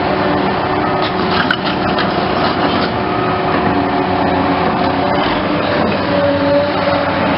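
Caterpillar hydraulic excavator working, its diesel engine running steadily with a few sharp knocks about a second or two in; one of its steady tones shifts in pitch about six seconds in.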